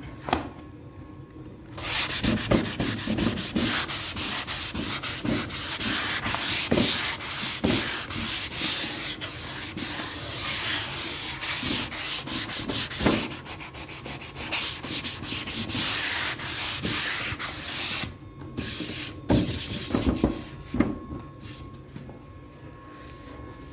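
Hand-sanding bare pine with a sanding block, a long run of quick back-and-forth scraping strokes over spots filled with body filler, as prep before primer. The sanding stops a few seconds before the end, followed by a few knocks.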